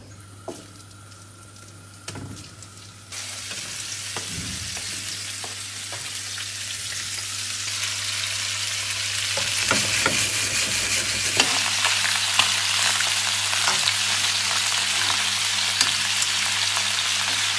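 Pork ribs and sausages sizzling as they brown in hot olive oil in a pan. The sizzle starts suddenly about three seconds in and builds to a steady, loud hiss, with a few sharp knocks along the way.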